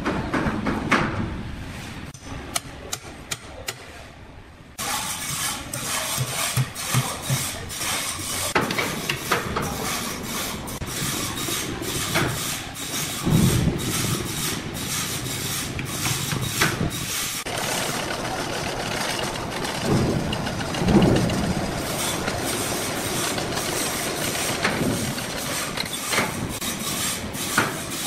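Sawmill machinery running: a steady mechanical din full of clanks and clicks, with a few heavy low thumps. It starts suddenly about five seconds in, after a quieter stretch of sharp clicks.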